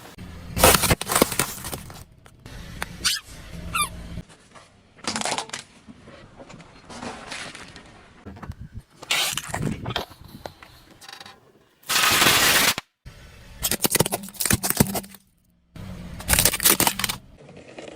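A run of loud cracks, crunches and pops as objects are crushed under a car's tyres, with one longer burst of noise about two-thirds of the way through.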